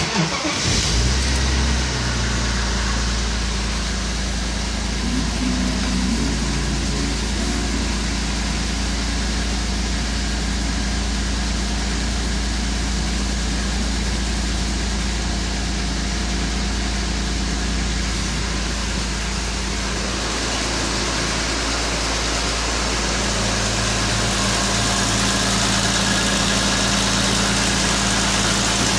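BMW E36 M3's inline-six engine starting about a second in, then idling steadily at about 1000 rpm. It gets a little louder near the end.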